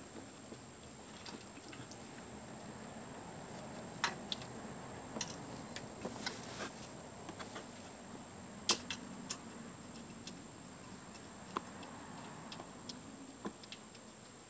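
Faint, irregular metallic clicks and taps of a hand tool and bolts as the belt tensioner is tightened down on a Ford 3.5 V6.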